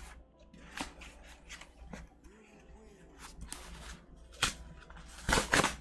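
A corrugated cardboard mailer being pried and torn open by hand: scattered scrapes and rustles of cardboard, with a louder stretch of rustling and ripping near the end.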